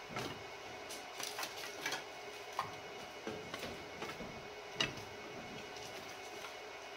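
Sticks of jack pine kindling being laid by hand in a wood stove's firebox: a scattering of light, irregular wooden clicks and taps as they knock against each other and the steel, with one sharper knock about five seconds in.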